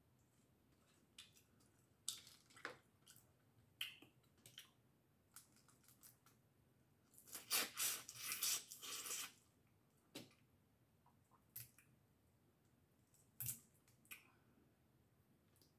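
Close-up eating of boiled seafood: shells cracked and peeled by hand, with chewing. Scattered small clicks and cracks, and a longer run of crackling about seven seconds in that lasts some two seconds.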